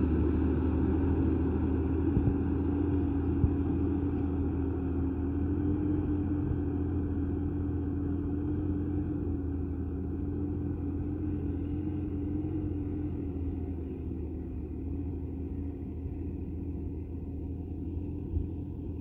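Diesel farm tractor engine running steadily while working a rotary tiller, with a constant low hum and a steady droning tone. It grows gradually quieter as the tractor moves away.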